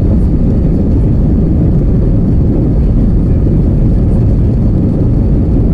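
Jet airliner cabin noise in flight: the engines and airflow make a loud, steady, low-pitched sound with a faint steady hum.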